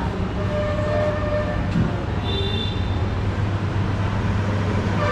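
A steady low rumble of background noise, even in level throughout, with a few faint brief tones over it.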